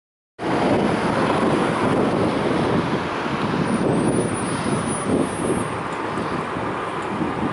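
Steady outdoor roar of road traffic, starting abruptly about half a second in.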